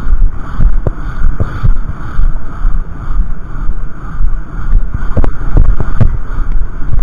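Heavy wind buffeting an action camera's microphone during a fast horseback ride, with a few sharp knocks scattered through it.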